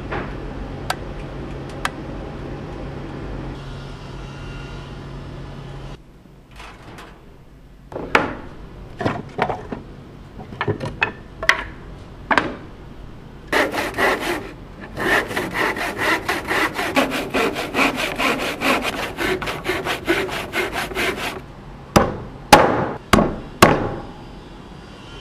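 Wood being sawn by hand: a few scattered strokes, then a fast, steady run of back-and-forth saw strokes. Near the end come four sharp knocks on wood.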